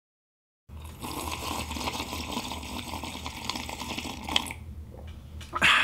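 A man taking one long, noisy slurping sip from a mug, lasting about four seconds after a moment of silence. A short, loud sound follows near the end.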